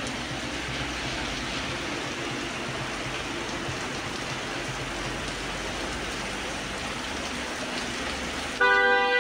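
Steady hiss of rain and tyres on a wet street as cars drive slowly past. Near the end a loud, sustained keyboard-like musical chord starts abruptly.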